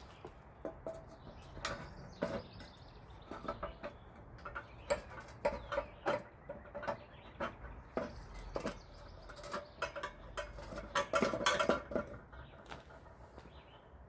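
Repeated clinks and knocks of metal exhaust pipe parts being handled and fitted together. Some strikes carry a short ringing tone, with a denser cluster of knocks near the end.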